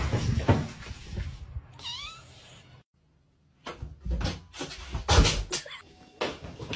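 A cat meows once, short and bending in pitch, about two seconds in. After a brief silence come several dull thuds and knocks.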